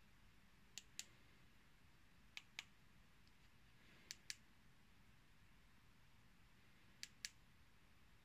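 Four pairs of sharp plastic clicks, each a button pressed and released, at uneven intervals: the remote of a wireless scooter turn-signal light being pressed to switch the light between modes.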